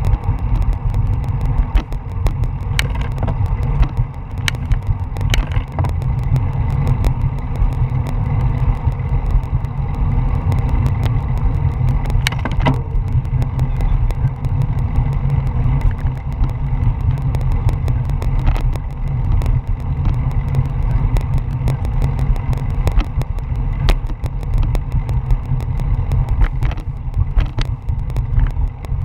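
Wind buffeting a bike-mounted action camera's microphone while riding a road bicycle in a pack of cyclists: a steady low rumble, with occasional clicks and rattles from the bike and road.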